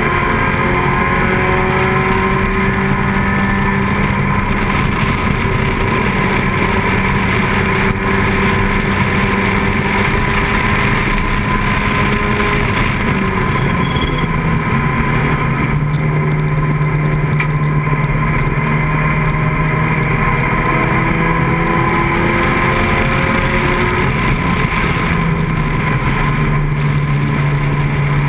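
Open-cockpit vintage sports racing car's engine running hard at speed, heard from the cockpit under heavy wind noise. Its pitch climbs slowly, drops about halfway through as the car slows for a corner, then rises and falls again near the end.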